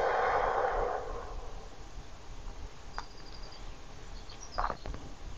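A person's long breath out, fading away about a second in, then quiet room tone with a single small click, faint high chirps and a brief soft breath-like noise near the end.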